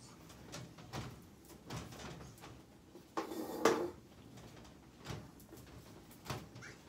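Clothes handled at a wooden dresser: scattered soft knocks and rustling, with a drawer sliding a little past three seconds in, the loudest sound.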